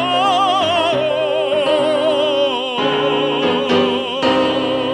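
A male singer holds the song's final note with wide vibrato over sustained accompaniment chords; the note slides down slightly about halfway, then holds until it stops near the end.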